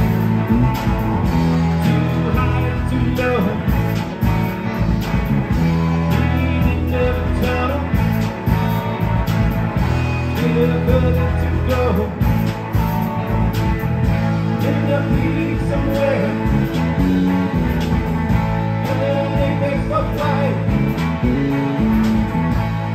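Live rock band playing: electric guitars, electric bass and a drum kit.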